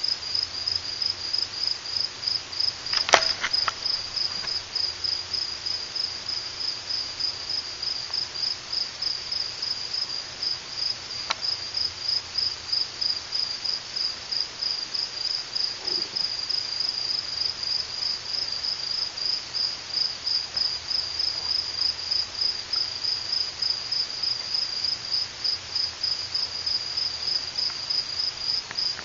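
Night crickets chirping steadily at a high pitch, about three chirps a second, with a single sharp click about three seconds in.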